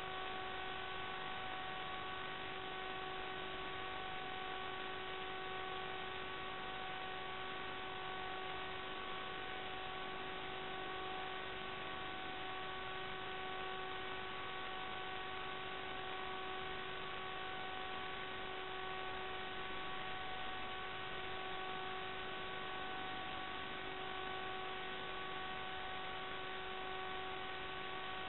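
Steady whine with several overtones over a constant hiss, unchanging in pitch or level, as picked up by the small camera riding on a radio-controlled flying model.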